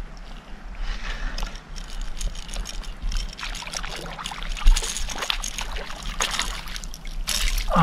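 A hooked fish splashing at the surface of shallow water as it is drawn in on the line, the splashing thickening about three seconds in and running on until near the end.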